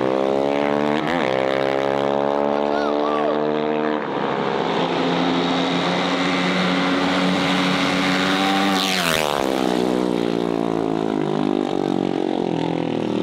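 Mini bike's small engine at full throttle: two short dips in revs near the start, then a pitch that climbs for a few seconds and holds high. About nine seconds in the pitch drops sharply, and the engine runs on lower.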